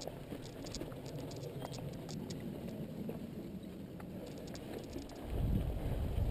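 Mountain bike rolling down rocky dirt singletrack, heard from a camera mounted on the rider or bike: a steady tyre rumble with many small irregular clicks and rattles from the bike over rocks and roots. Near the end a louder low rumble takes over.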